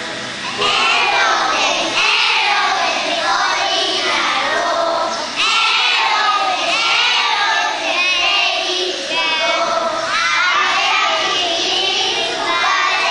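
A group of young children chanting a rhyme together in unison, in short phrases.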